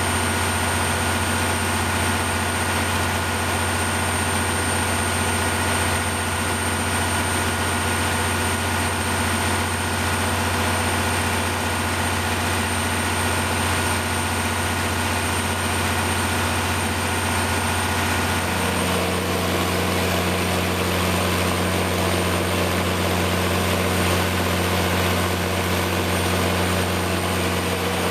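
Kohler 350 kW diesel generator set with a Detroit Diesel engine running steadily with a constant hum. About 18 seconds in, the pitch pattern of the hum shifts and a new tone joins it, while the overall level stays the same.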